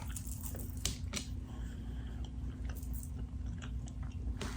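Close-miked chewing of fast food, with a few scattered short, moist clicks from the mouth.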